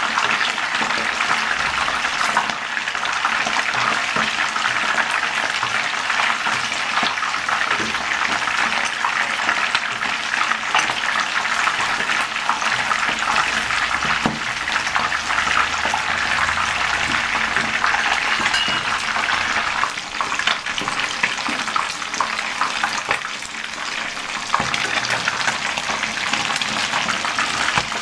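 Whole fish shallow-frying in hot oil in a pan: a steady sizzle with constant small crackles and spatters.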